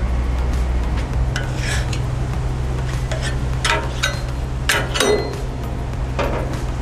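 Metal spatula scraping and tapping across a Blackstone griddle's steel top as it spreads canola oil, a series of short scrapes, over a steady low hum.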